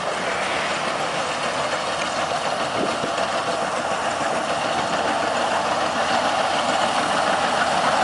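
Maxxi Bimo crawler combine harvester running steadily as it cuts and threshes rice, growing a little louder toward the end as it draws closer.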